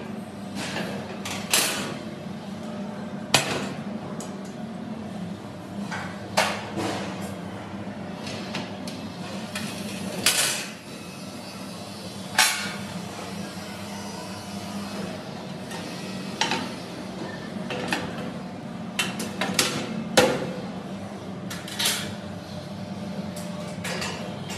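Irregular metallic knocks and clanks of sheet-steel shelves and fittings of a supermarket gondola rack being set into place on slotted steel uprights. There are about fifteen separate sharp knocks, a few of them louder than the rest.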